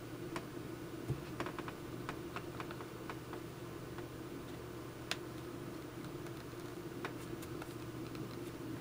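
Scattered small clicks and taps from handling a dyed leather axe sheath and fitting its brass screws, over a steady low hum.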